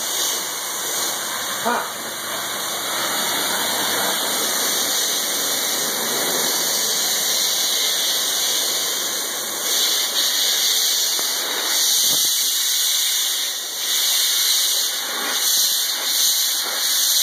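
Car-wash high-pressure wand spraying water in a steady hiss, the jet hitting the car's headliner and interior panels.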